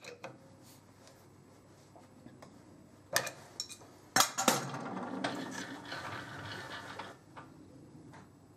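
Metal-on-metal clinks and knocks from handling and adjusting a lathe's tool post and tooling: a sharp knock about three seconds in, another just after four seconds, then a few seconds of metallic rattling and clinking.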